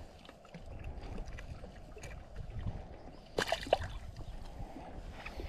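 Water sloshing and lapping around a person wading chest-deep, with a low rumble throughout and a brief sharper sound about three and a half seconds in.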